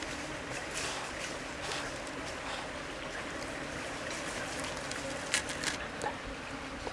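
A stream running steadily, with a few sharp clicks and taps of food handling and knife work near the end.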